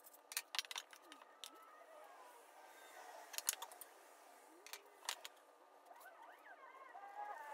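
Scattered light clicks and taps of a metal straightedge and a plywood panel being handled and laid on a workbench.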